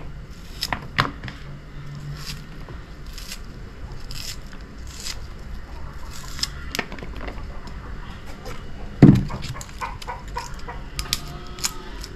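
Knife slicing a red onion held in the hand, a short crisp snick with each cut at an uneven pace, with one louder thump about nine seconds in.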